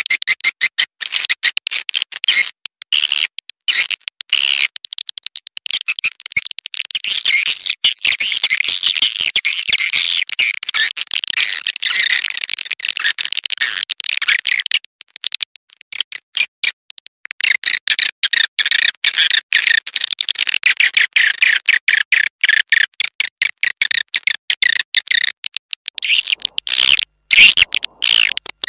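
Swiftlet calls of the kind played as a lure to draw birds into a swiftlet house: dense, rapid, buzzy chirps and twitters that stop and start abruptly, with a longer pause about halfway through.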